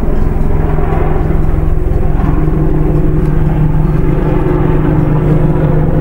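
Stock sound effect of a helicopter flying far away: a steady rotor thrum over a constant low drone.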